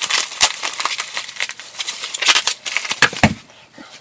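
Crinkling and rustling of plastic wrapping being handled by hand, a run of sharp crackles that dies away near the end.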